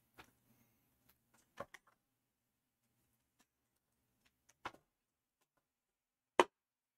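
A few short, soft clicks and taps from trading cards being handled, with the sharpest one near the end.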